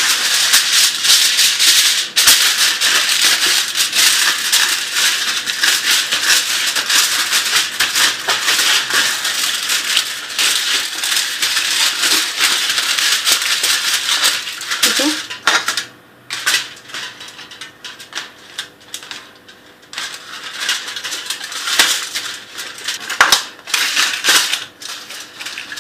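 Aluminium foil crinkling and rustling as it is pressed and folded by hand around the base of a round cake pan. Dense, continuous crackling for about fifteen seconds, then sparser crackles with short pauses.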